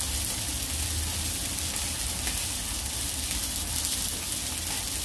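Beef sizzling steadily on a hot grill pan, with a low steady hum underneath.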